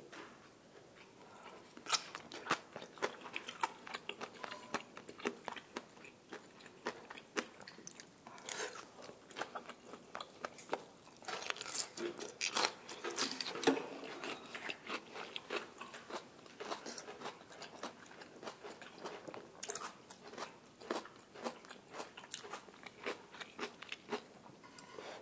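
Close-miked chewing of grilled Korean beef with green onion kimchi: a steady run of short mouth clicks and crunches, busiest around the middle.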